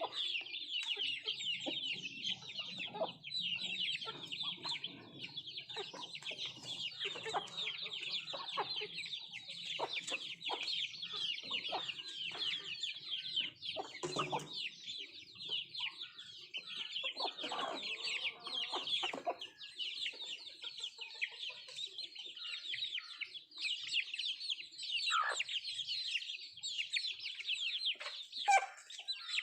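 Nattu kozhi (native country chickens) clucking while feeding, over a continuous, dense high-pitched chirping.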